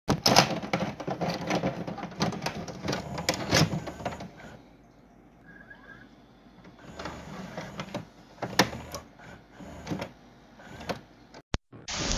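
Dense, irregular clicking and crackling over a hiss for about four seconds, dying down to a faint hiss, then coming back in scattered clicks. Near the end it cuts out to silence apart from one sharp click, then a loud burst of noise starts.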